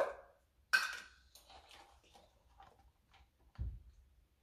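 Kitchen items being handled on a counter. A sharp clink with a brief ring comes about a second in, light ticks and rustles follow, and a dull thump comes near the end as something is set down.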